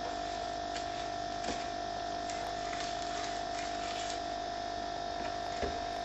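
A steady electrical hum with a constant mid-pitched whine, over a few faint scrapes of a metal spoon stirring sugar into plum pulp in a stainless steel saucepan.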